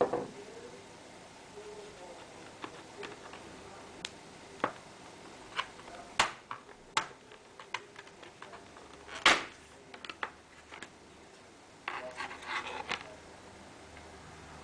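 Scattered clicks and clacks of hard plastic and small metal parts as an Acer Aspire laptop is handled and opened up for a RAM upgrade. One louder clack comes about nine seconds in, and a quick run of clicks follows near the end.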